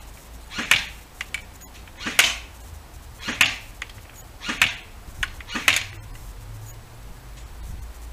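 G&G CM16 airsoft electric rifle firing five single shots, about a second apart.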